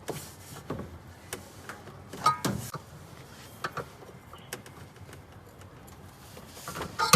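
Scattered metallic clicks and knocks of a 13 mm socket wrench tightening the two mounting screws of a washing machine's motor, fixing it in place to tension the drive belt. There is a louder clink a little over two seconds in and another sharp one near the end.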